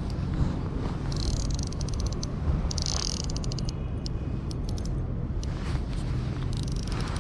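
Wind rumbling on the microphone, with several short spells of rapid fine clicking from a baitcasting reel as line is wound in on a hooked fish.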